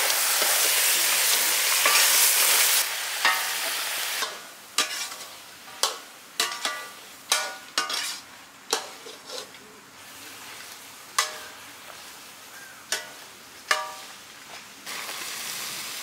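Thick turkey curry sizzling in a black iron kadai over a wood fire. A long metal ladle then stirs it, knocking against the pan about a dozen times with short metallic rings over a quieter sizzle. The loud sizzle returns near the end.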